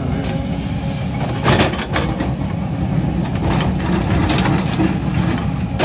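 Excavator's diesel engine running steadily, with a couple of short knocks about one and a half and two seconds in.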